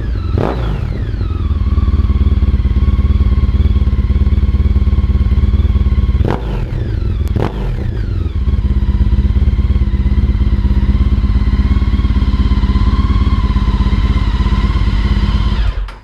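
Honda ST1300's V4 engine running through Delkevic 450mm oval carbon-fibre silencers with the baffles removed. It idles steadily, is blipped about half a second in and twice more around six to seven seconds in, each rev falling back to idle, then stops abruptly near the end.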